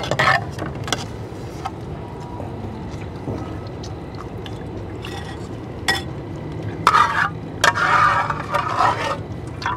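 Liquid being poured and ladled, with a few short clinks of dishes or utensils near the start and louder splashy pouring near the end, over a steady low hum.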